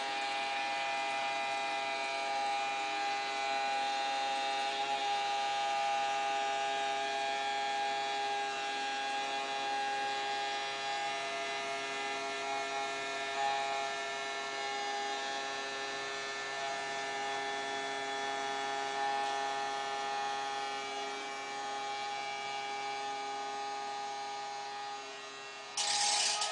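Small electric bilge pumps running with a steady, even whine made of several fixed tones. Near the end a sudden louder rush of noise with sharp clicks comes in.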